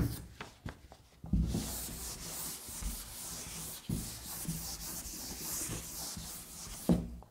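Handwriting: a few short scratching strokes, then a pause, then about five and a half seconds of continuous scratching and rubbing of the writing tip on the surface.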